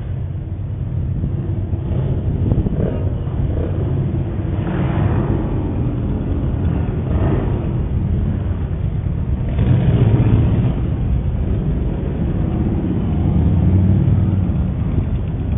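Many motorcycle engines rumbling as a procession rides past, a steady low sound that swells several times as groups go by. It is heard thinly through a security camera's microphone.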